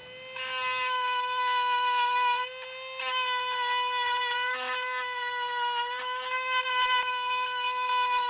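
Handheld high-speed rotary tool whining steadily as it grinds out the inside of a 2-inch PVC coupling to fit it over a pulley hub, with a short dip in the whine about two and a half seconds in.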